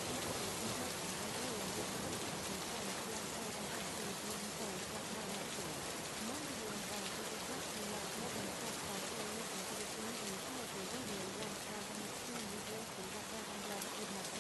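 Steady rain-like hiss, with a faint, quietly mixed voice murmuring underneath: the spoken affirmations of a subliminal track buried under the rain sound.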